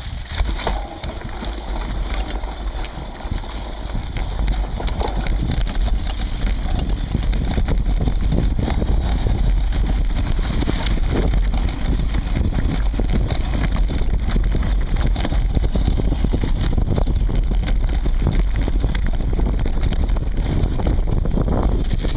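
Mountain bike rolling fast down rough grassy singletrack: wind buffeting the bike-mounted camera's microphone over tyre rumble, with frequent short knocks and rattles from the bike over bumps. It grows louder over the first several seconds as speed builds, then holds steady.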